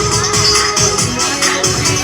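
Background music with a steady beat and a bright shaker or tambourine rhythm.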